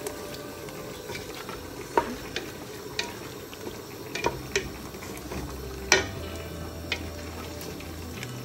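Onion, ginger-garlic paste and tomato sizzling in oil in a pot while being stirred with a slotted spatula, which knocks and scrapes against the pot about half a dozen times. This is the bhuna stage, frying the curry base down.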